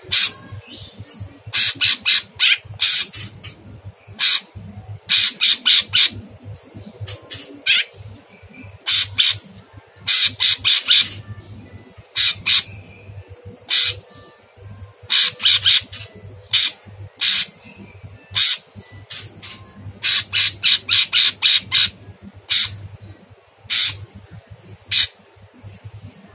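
A caged male orange-bellied leafbird (cucak cungkok) calling in loud, harsh volleys. Each volley is a quick run of two to five short, rough notes, with brief pauses between volleys.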